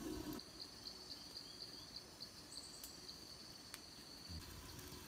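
Insects in the forest making a faint, steady high trill with pulsing chirps on it, and a few scattered faint ticks.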